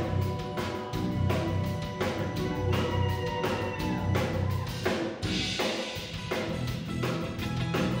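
Live rock band playing an instrumental passage: a drum kit keeping a steady beat with kick and snare, under electric bass, electric guitar and keyboard. A cymbal crash comes about five seconds in.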